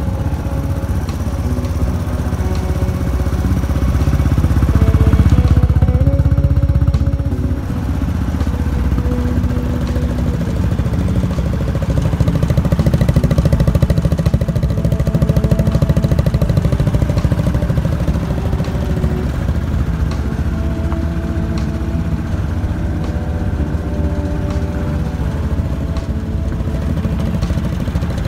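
Yamaha 125 cc single-cylinder four-stroke scooter engine idling through an aftermarket muffler, cold after sitting unused in near-freezing weather. It runs louder for a few seconds about a quarter of the way in, and again around the middle.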